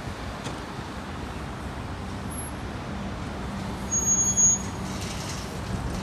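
Steady road traffic noise from a busy multi-lane city road, with a low engine rumble and a brief louder swell about four seconds in.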